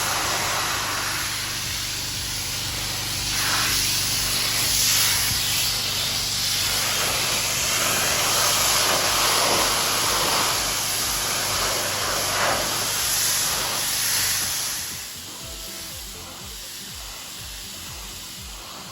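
Pressure washer jet spraying a paved surface: a loud, steady hiss that drops to a lower level about fifteen seconds in.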